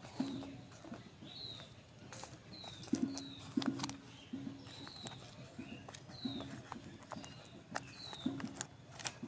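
Small birds chirping outdoors with short falling calls about once a second, among short low notes that repeat irregularly. Faint clicks and crackles of fingers pressing loose soil in a plastic cup.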